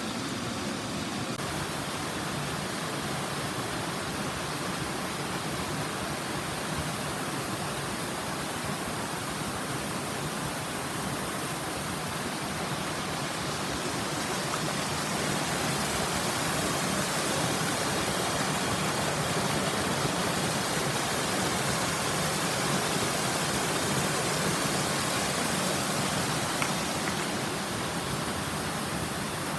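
Steady rush of a mountain stream's flowing water, growing a little louder about halfway through.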